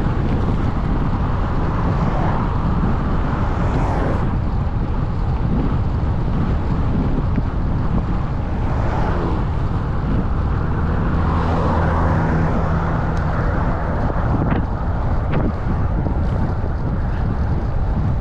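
Wind buffeting the microphone during a ride, a loud, steady rush strongest in the low end. A low steady hum from a vehicle engine comes in for a few seconds midway.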